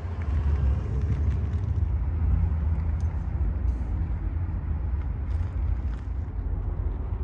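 Skid steer engine running steadily, a low rumble.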